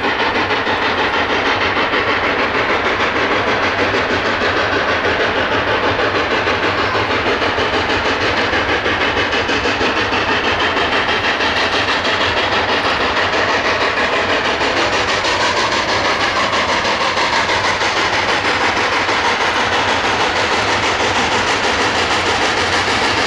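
Coal-fired steam locomotive running under way: a steady, loud mix of exhaust and steam hiss with an even, rapid rhythm of the train rolling on the rails.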